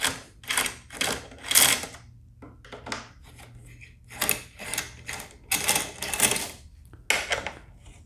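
A 5mm hex tool unscrewing the metal mounting bolts of a motorcycle's stock luggage rack: a run of short clicking, rattling strokes in clusters with brief pauses.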